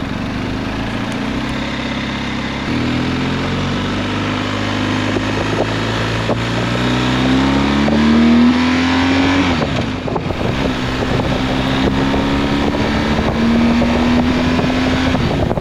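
BMW R1250 GS Adventure's boxer-twin engine under way, rising in pitch as the bike accelerates. It drops suddenly at a gear change about ten seconds in, then climbs again, with wind rushing over the microphone.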